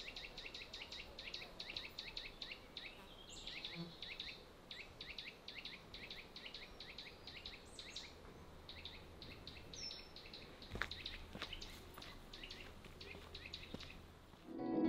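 Faint woodland ambience: long runs of fast, evenly repeated high chirps, broken by short pauses, with a few brief high whistled bird calls over them.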